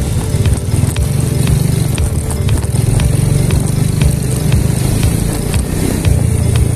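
Yamaha Jupiter motorcycle riding along a street: a steady engine drone under heavy low wind noise on the handlebar-mounted phone's microphone.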